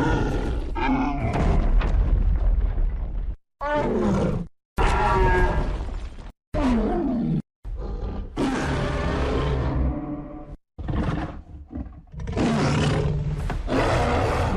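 Kong's roars and growls from film creature sound design, played as about six short clips cut together with abrupt silent gaps between them. Some calls fall in pitch.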